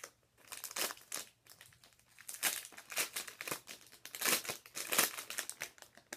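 Thin clear plastic wrapping around a squishy toy crinkling as it is handled, in quick, irregular scrunches.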